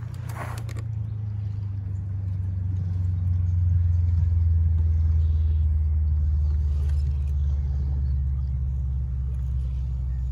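Steady low engine rumble that grows louder over the first few seconds and then holds. A few sharp scrapes come in the first second.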